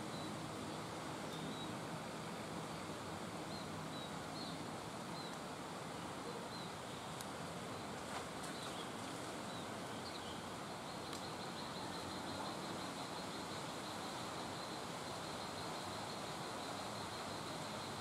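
Steady outdoor background hiss with faint, short bird chirps here and there, and a faint fast ticking trill running for several seconds in the second half.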